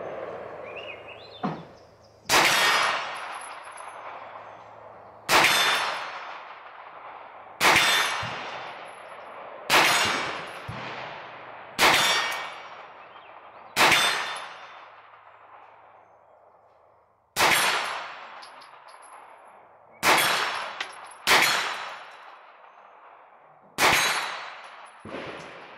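Hi-Point 995TS 9mm pistol-caliber carbine firing a slow string of about ten aimed single shots, two to three seconds apart, with a longer gap near the middle. Each sharp report trails off over a second or two.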